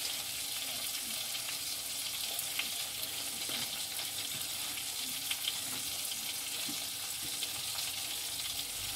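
Food frying in a pan: a steady sizzle with a few faint spits.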